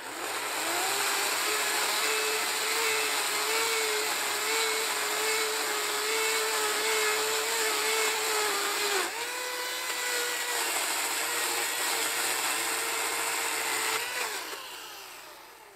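Chainsaw running at a steady high speed, ripping lengthwise through a cedar log. Its pitch dips briefly about nine seconds in, then it falls and winds down near the end as the saw is lifted out of the cut.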